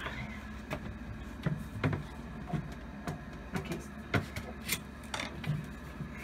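Scattered light knocks and clicks, about one or two a second at irregular intervals, from tools and the cabinet being handled while a vanity is leveled, over a low steady hum.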